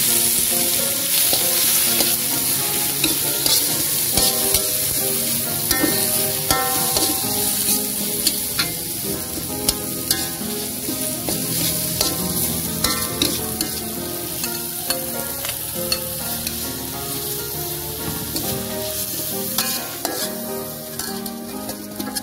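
Minced garlic and shallot paste frying in oil in a wok, with a steady sizzle, as tomato, spring onion and chicken are stirred in. A metal spatula scrapes and taps against the wok again and again.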